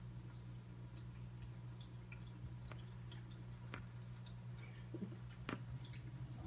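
A low steady hum, with a few faint, scattered clicks.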